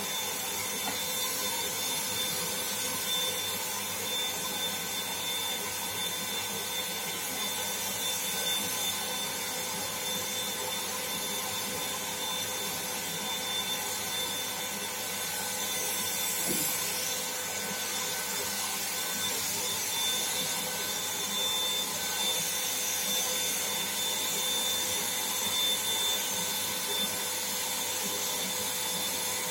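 Black & Decker HVLP400 electric paint spray gun running steadily, its motor giving a constant whine over a hiss of air, while it sprays a coat of paint.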